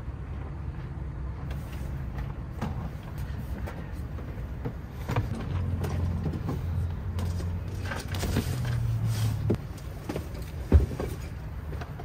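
Low, steady engine rumble of idling vehicles, with scattered knocks and clunks of gear (a cooler box, table boards) being set down inside the car; one sharp knock near the end is the loudest.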